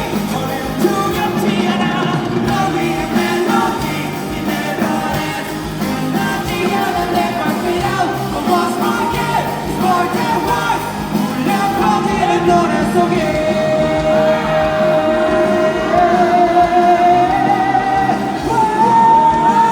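Pop-rock song with a lead vocal over the full band backing. In the second half the singer holds long sustained notes with vibrato, stepping up in pitch twice toward the end.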